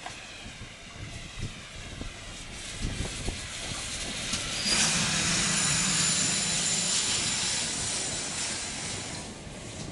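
Steam locomotive passing close by with a train, its sound growing as it nears. From about five seconds in, a loud steam hiss over a low rumble as the engine and tender go past, easing just before the end.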